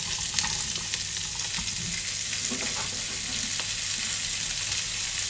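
Sliced onion sizzling as it hits a hot frying pan of butter: a steady hiss with scattered crackles and pops.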